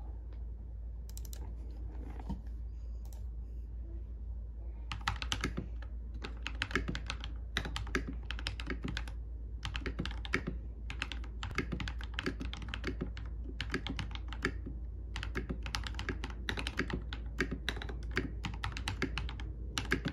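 Mechanical keyboard being typed on, with tape laid under the spacebar to damp it: a few scattered keystrokes at first, then steady, continuous typing from about five seconds in.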